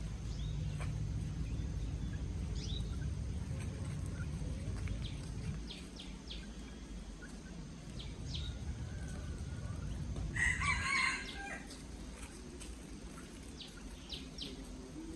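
Chickens calling, with short high chirps scattered throughout and one loud, brief call about ten seconds in, over a low rumble.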